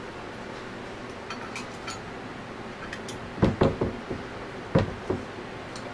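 Small hex key working the screws of a scroll pump's inlet flange: a few faint ticks, then a cluster of sharp metal clicks and knocks a little past halfway and two more near the end.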